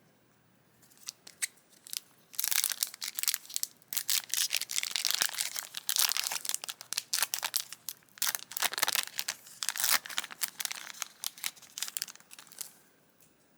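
Foil wrapper of a Yu-Gi-Oh booster pack being crinkled and torn open by hand: a dense, crackly rustle made of many sharp crinkles, starting about a second in and stopping shortly before the end.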